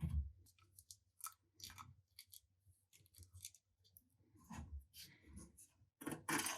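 Irregular small clicks, taps and short scrapes of hand work on an old fencing sabre and its parts, with a louder scraping, rustling stretch near the end.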